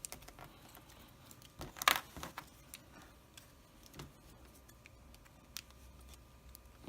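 Light clicks and rattles of small plastic toy parts being handled and fitted together, the loudest a sharp clatter about two seconds in.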